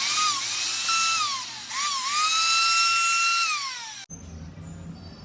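A Laser Tech angle grinder's motor whining at high speed. It spins up, dips briefly twice and spins back up, then holds steady before winding down and cutting off about four seconds in.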